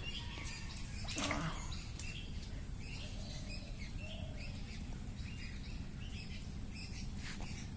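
Small birds chirping with short, scattered calls over a steady low background rumble, with a brief soft noise about a second in.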